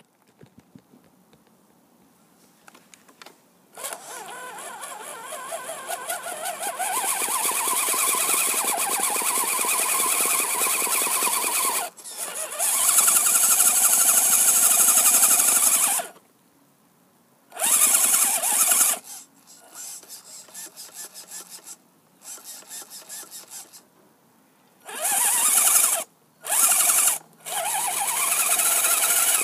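RC 4x4 crawler truck's electric motor and gearbox whining in throttle bursts while it climbs a steep dirt slope. The pitch rises and falls with motor speed. There are several short stops between bursts, and the first few seconds are quiet.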